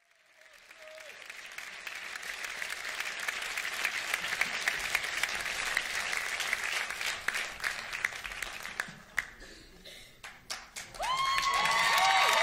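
Audience applause that swells, then dies away into a few last separate claps. Near the end, several voices come in together, holding sung notes.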